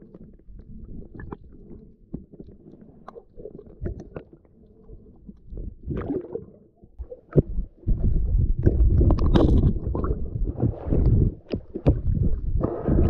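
Muffled water noise heard by a camera in its underwater housing: low gurgling and sloshing with scattered sharp clicks and knocks, getting louder and busier about eight seconds in.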